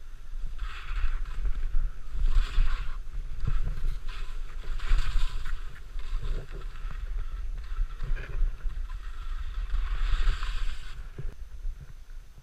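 Skis hissing and scraping over snow in several separate bursts of about a second each, as in turns, over a steady low rumble of wind buffeting the microphone.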